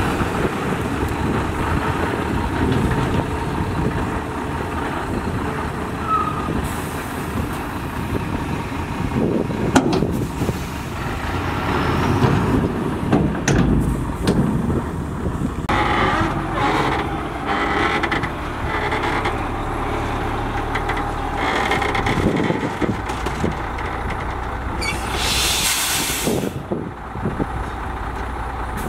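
Heavy diesel dump trucks running steadily, one unloading dirt and then a loaded truck manoeuvring up to the pile. A short, loud hiss of air comes near the end.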